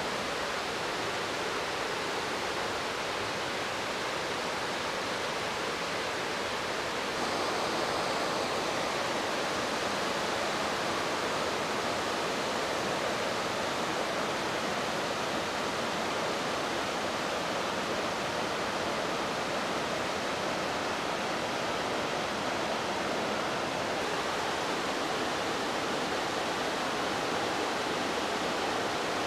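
Water pouring over a river weir: a steady, even rush of white water that gets a little louder about seven seconds in.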